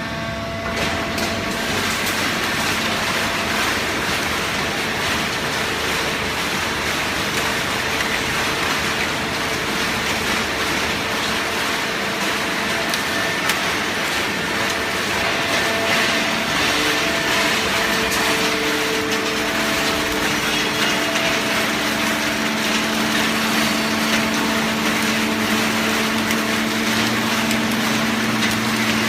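Automatic horizontal hydraulic baling press running on scrap newspaper. A steady, dense machine noise carries a low hum from the hydraulic pump, and the hum grows stronger about two-thirds of the way through.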